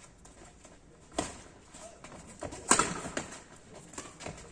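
Badminton rackets striking the shuttlecock during a doubles rally: four sharp smacks, the loudest a little past halfway, with two quicker hits after it.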